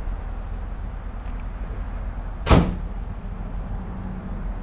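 A single sharp thump about halfway through, over a steady low rumble.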